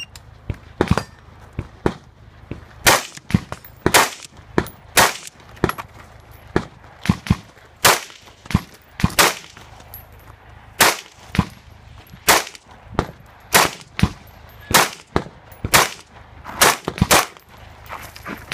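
Semi-automatic rifle firing a long string of single shots at an irregular pace, mostly half a second to a second apart, with short pauses between groups of shots.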